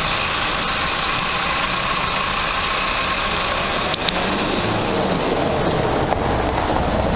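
Minibus engine running steadily as the bus pulls away over a cobbled street, with road traffic noise. The low rumble grows near the end as a car approaches.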